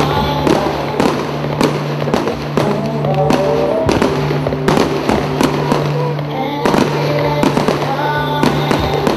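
Aerial firework shells bursting in quick succession, sharp bangs about twice a second, over loud music played for the display.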